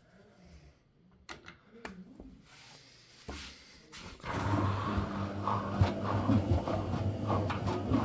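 A few faint clicks and a knock, then about four seconds in an Indesit WIL 85 front-loading washing machine starts running: a steady motor hum with occasional knocks as the drum turns a load of two wet towels.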